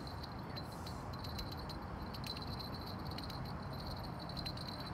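Night outdoor ambience: a steady high-pitched insect trill over a low, even city rumble, with a few faint light clicks.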